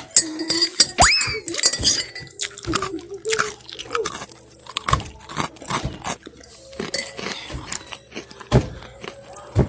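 Dishes and cutlery clinking and knocking repeatedly, with a brief rising squeak about a second in.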